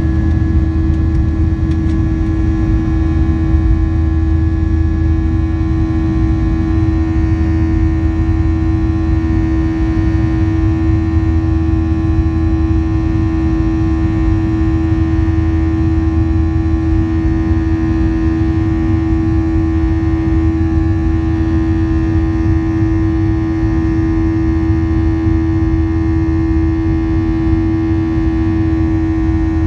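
Boeing 737-700's CFM56-7B turbofan at takeoff thrust, heard from the cabin beside the engine during lift-off and climb-out. It is a loud, steady drone: a deep rumble, a strong hum and a row of steady tones above it, the fan's buzzsaw.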